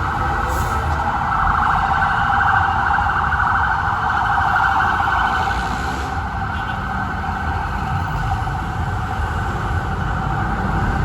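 Fire truck siren sounding continuously as the truck responds, over the low rumble of its engine and road noise.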